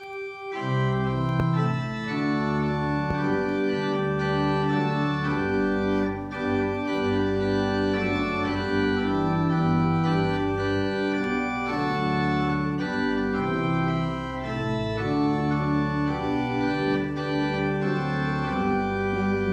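Organ playing the introduction to a hymn in sustained chords.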